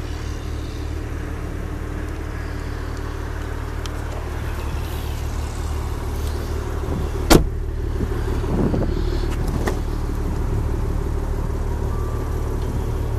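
Steady low rumble around a car, with one sharp car-door thump about seven seconds in and some brief handling and latch noise just after.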